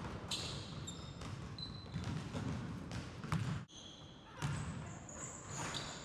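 A basketball bouncing on a wooden gym floor a few times, with short high squeaks from sneakers on the court.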